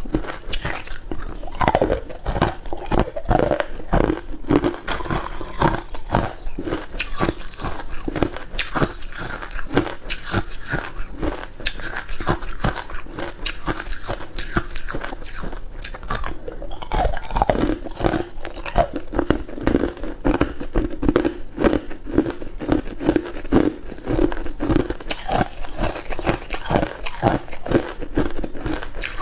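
Ice being bitten and chewed: rapid, continuous crunching, many crunches a second with no pause.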